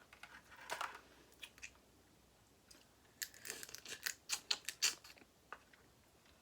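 Close-miked eating sounds of someone chewing seafood: wet mouth clicks, smacks and light crunching, scattered at first and coming thickly for a couple of seconds from about three seconds in.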